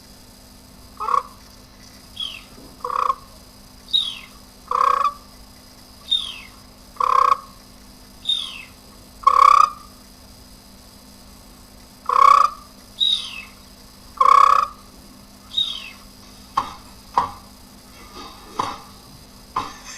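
An animal calling over and over, each call a short high falling note followed by a louder, lower cry, repeating every one to two seconds; near the end the calls turn shorter and quicker.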